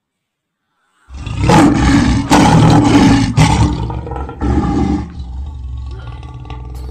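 A loud animal roar sound effect, like a big cat's, starting abruptly about a second in after dead silence. It is loudest for the first few seconds, then settles into a lower, steadier rumble.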